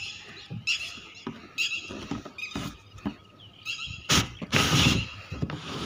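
Screw-on lid of a plastic rooftop water tank being twisted open: several short squeaks of plastic rubbing on plastic, then a louder scrape about four seconds in.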